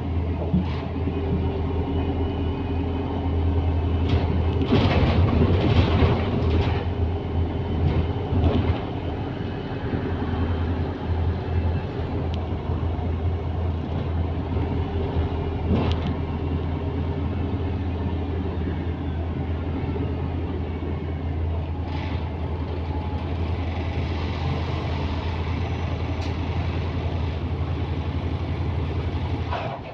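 A London bus's engine and running gear heard from inside the bus as it drives, a steady low drone with body rattles and a few knocks, busiest about five seconds in. The sound drops away abruptly at the very end.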